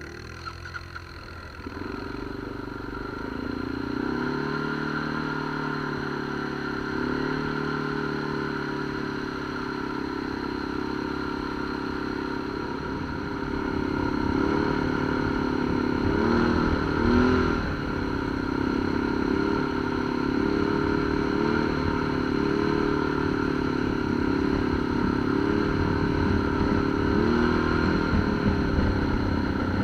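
ATV engine running as it is ridden along a trail, its pitch rising and falling with the throttle.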